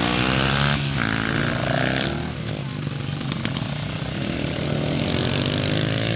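Small dirt bike engines revving as the bikes ride off across a dirt track, the engine note rising and falling with the throttle. About two seconds in, the nearest bike's note thins out as it pulls away, leaving the more distant bikes running.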